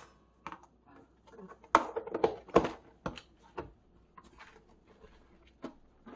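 Household handling clatter: a string of irregular knocks and clicks as containers and food packages are moved about, loudest a little under two seconds in and again near the middle.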